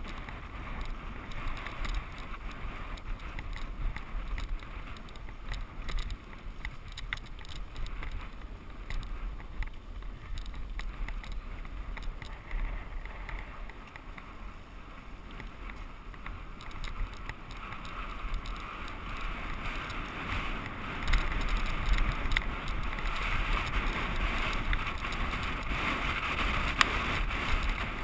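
Mountain bike rolling over a packed-dirt trail: tyre noise on the dirt with frequent small clicks and rattles from bumps, and wind rushing over the microphone. It gets louder about three quarters of the way through.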